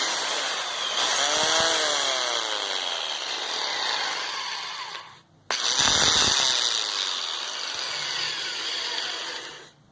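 Bosch GDC 14-40 marble saw's electric motor running loud and rough for about five seconds, cutting out briefly, then running again for about four seconds. The strange noise is one the repairman believes is at least a broken bearing.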